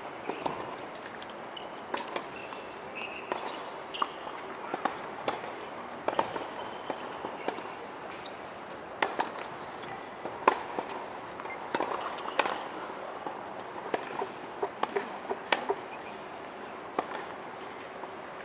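Scattered sharp pops of tennis balls being struck and bouncing on the surrounding courts, irregular and a second or two apart, over a steady outdoor background hum.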